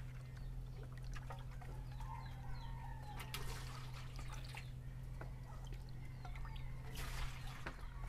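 Liquid batter trickling and dripping while being poured, with faint bird chirps and a steady low hum underneath.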